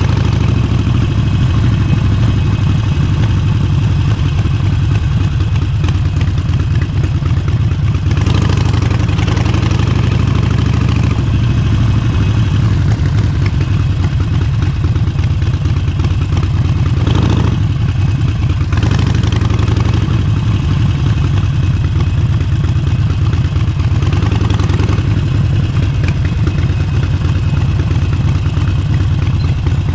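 Harley-Davidson Forty-Eight's air-cooled 1200 cc V-twin running steadily at riding speed through a Vance & Hines exhaust, heard from on the bike with wind and road rush. A louder rush of noise swells and fades a few times.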